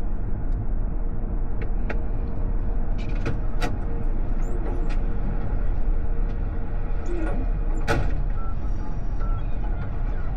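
Steady low road and tyre rumble of an AITO M9 under way, heard from inside the cabin, with a few scattered sharp clicks, the loudest about eight seconds in.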